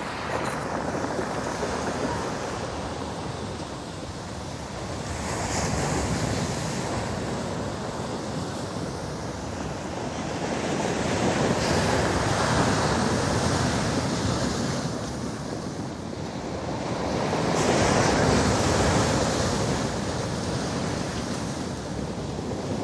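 Stormy sea surf: waves breaking on the beach one after another, the roar swelling and ebbing about every six seconds.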